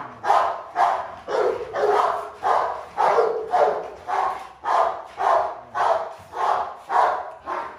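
American bully dog barking over and over in a steady rhythm, about two barks a second.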